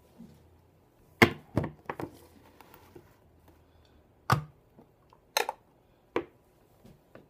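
Metal food cans being set down and stacked on one another: a series of sharp knocks, three in quick succession about a second in, then single knocks at about four, five and a half and six seconds.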